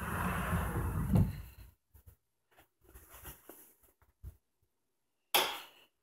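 Handling noise from a camera being moved about: a rubbing rustle lasting under two seconds, a few faint ticks and a click, then another short rustle near the end.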